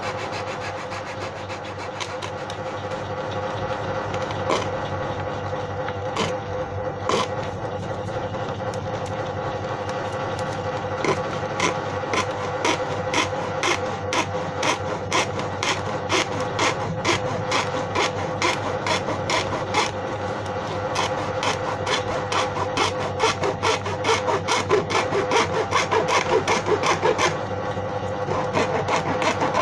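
Rhythmic back-and-forth rasping strokes of a hand tool working a plastic paint bucket, settling into a steady two to three strokes a second about a third of the way in and growing louder near the end, over a steady low hum.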